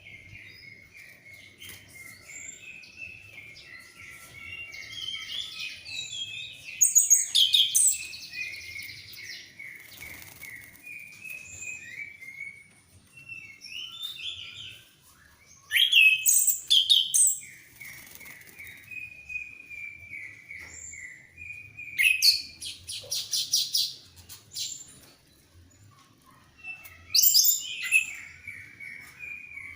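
Orange-headed thrush singing vigorously: a continuous busy run of chattering notes, broken four times by loud, rapid, high-pitched trilling phrases.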